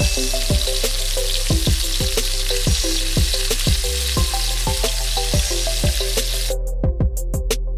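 Raw chicken pieces sizzling in hot oil in a wok as they are sautéed and stirred with a metal spatula, over background music with a steady beat. Near the end the sizzle breaks up into choppy gaps.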